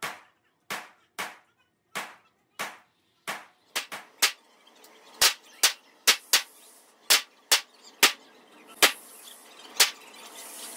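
Gunshots at an indoor shooting range: about eighteen sharp shots, roughly one every two-thirds of a second at first, then coming quicker and more unevenly in pairs, each with a short echo off the range walls.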